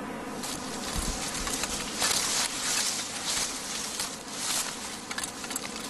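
Dry sugarcane stalks and leaves rustling and crackling as cane is cut and handled, in irregular bursts with a few sharp snaps.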